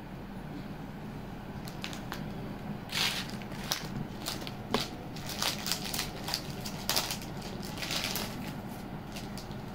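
Handling noise from beaded jewellery being moved about: irregular scrapes and light clicks that start about two seconds in and are busiest in the middle.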